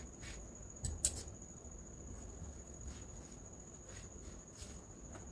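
Fabric being handled and laid flat: soft rustles and a few light taps, the sharpest about a second in, over a steady high-pitched whine.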